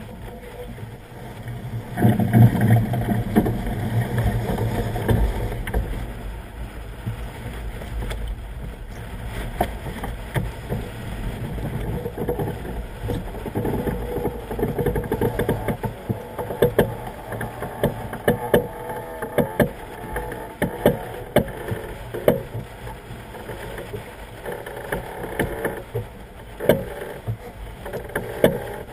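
Sigma 33 racing yacht sailing hard upwind, heeled over: water rushing and splashing along the hull with wind buffeting the microphone, and frequent short thuds and knocks as the boat slams into waves. It is loudest about two to five seconds in.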